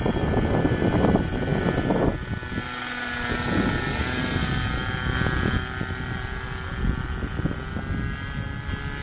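Model airplane motor and propeller running steadily overhead, a high-pitched drone whose pitch shifts slightly a few seconds in. A low rumble sits under it for the first couple of seconds.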